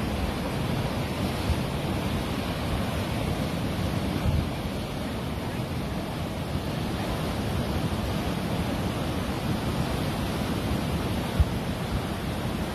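Flash-flood water rushing in a steady, even torrent, strongest in the low range. A single brief thump sounds near the end.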